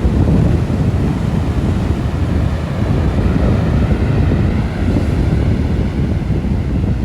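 Wind buffeting the microphone in a steady low rumble, with sea waves washing on the shore beneath it.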